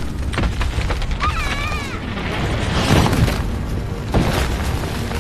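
Earthquake sound effects: a continuous deep rumble with several crashes of collapsing masonry and debris, the loudest about three seconds in. A high, wavering cry from a person comes about a second in.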